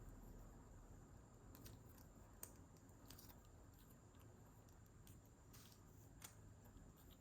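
Near silence, with a few faint, short clicks and light rustles scattered through it over a low steady hum.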